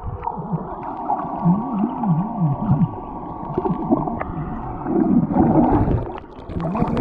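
Muffled underwater sound heard by a camera held below the surface among swimmers at a boat's swim ladder. Dull, slowly wavering sounds and water movement come through with the higher sounds cut off, and there is a louder stretch of churning near the end as swimmers stir the water.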